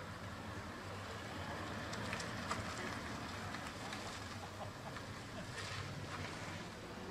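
Car towing a caravan driving slowly away across an asphalt lot: faint, steady engine and tyre noise mixed with outdoor air noise.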